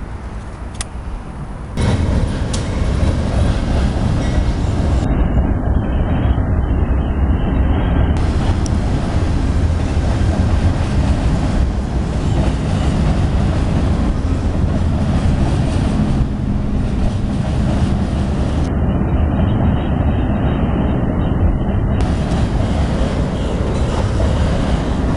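Amtrak Silver Star passenger train passing close by, a loud, steady rumble of its cars rolling over the rails. It starts suddenly about two seconds in.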